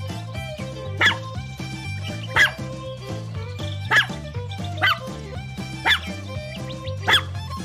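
Puppy barking: six short, high barks about a second apart, over background music.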